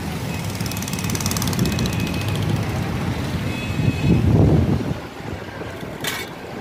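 Roadside street noise: a steady low rumble of traffic, swelling louder for a moment about four seconds in.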